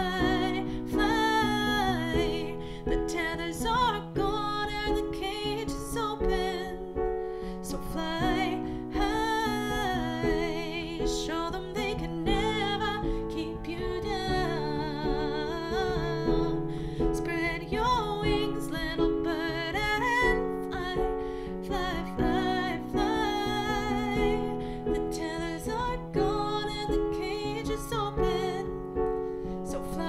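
Piano played in sustained chords, with a woman singing a wordless, wavering melody over it.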